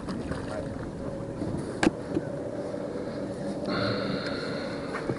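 A boat's motor humming steadily, with a sharp knock about two seconds in and a higher whine joining about two-thirds of the way through.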